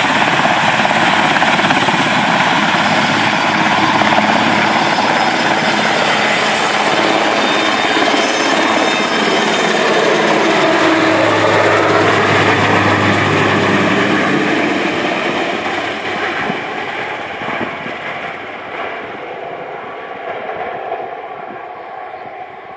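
Puma-family twin-turbine military helicopter taking off and passing low overhead: loud rotor and turbine noise with a high turbine whine. It fades steadily over the last several seconds as it flies away.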